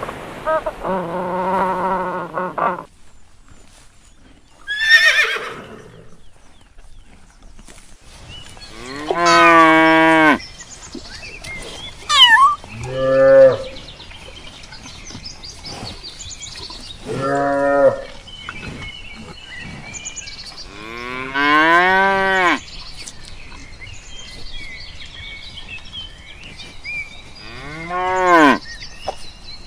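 Cow mooing: a series of drawn-out, bending calls a few seconds apart, with a couple of short higher squeaks between them.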